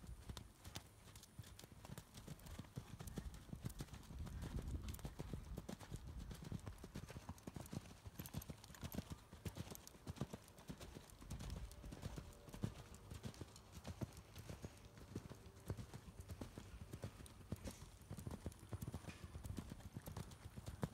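Hoofbeats of a horse cantering on sand arena footing: a continuous, even run of dull thuds.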